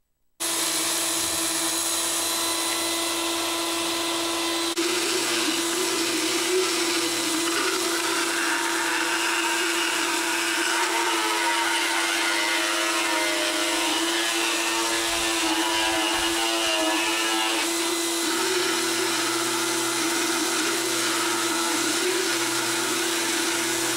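Motorized equine dental float running with a steady hum while its head grinds against a horse's teeth, filing them down; the grinding gets rougher through the middle stretch.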